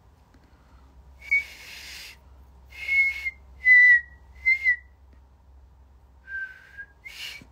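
A woman whistling about six short notes through pursed lips. The whistle is breathy, with much air rushing through and thin high tones, and one note near the end sits a little lower.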